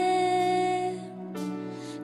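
Live band playing a slow worship song, a woman singing one long held note that ends about halfway through, after which the music drops quieter.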